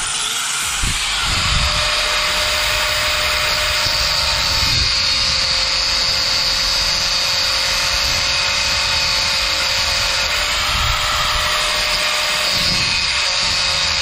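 A handheld power tool running steadily for the whole stretch: a loud, even hiss with a steady whine, and some uneven low thuds from handling.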